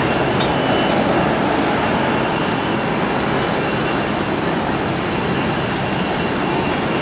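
Steady jet aircraft noise on an airport apron: an even rumbling hiss with a faint high whine.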